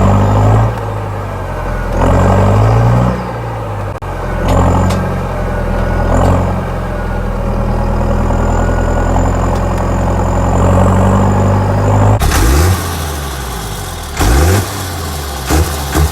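Straight-piped tractor engine running low, with several short swells of throttle. About twelve seconds in, a cut leads to another straight-piped tractor being revved up and down repeatedly.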